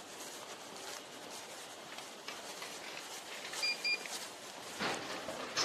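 Two short electronic beeps in quick succession, each a steady high tone, about three and a half seconds in. They are followed by a couple of brief noisy scuffs near the end, over low background noise.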